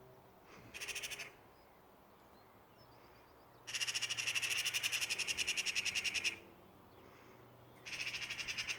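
A bird's rapid chattering call, about eleven notes a second, in three bursts: a short one about a second in, a long one of about two and a half seconds in the middle, and another starting near the end.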